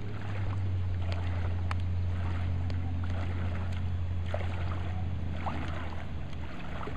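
Light splashing and lapping of lake water as hands paddle beside a sailboard, over a steady low rumble.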